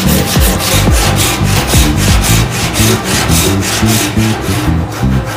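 Hand saw ripping lengthwise along the grain of a wooden plank in a quick, even rhythm of back-and-forth strokes, easing off just before the end.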